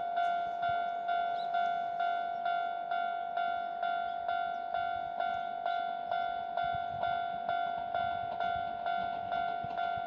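Japanese level-crossing warning bell ringing its 'kan-kan' alarm: a steady run of bright, bell-like strikes, a little over two a second, each one fading before the next.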